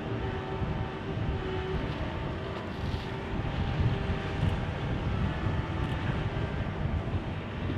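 Steady drone of a heavy diesel engine, with held tones over a low, uneven rumble of wind on the microphone.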